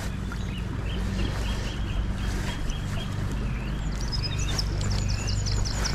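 Birds singing over steady river water: a run of short repeated notes in the first half, then quick high chirps from about four seconds in. A low steady hum runs underneath.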